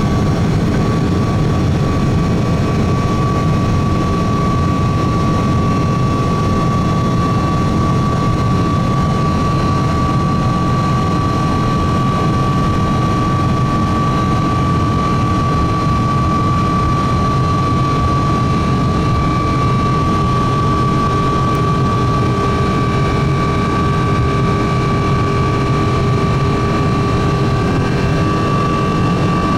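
Boeing 777-200 cabin noise with the jet engines running: a loud, steady rush with a steady high whine from the engines.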